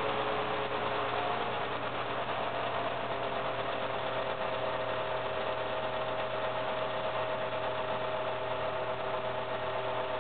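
Mid-1980s Lasko/Galaxy three-speed plastic-bladed fan running, a steady whine over the rush of air; the whine settles to a fixed pitch about two seconds in. The whine is loudest on low speed and, with the fan oiled and spinning freely, the owner takes it for a character of the fan rather than a struggling motor.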